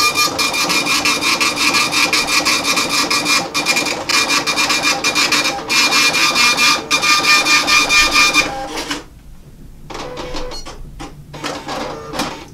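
Star SP700 impact dot-matrix receipt printer printing its self-test sheet: a fast, rasping chatter with a steady whine. It has two short breaks and stops about eight and a half seconds in, and a few softer short sounds follow.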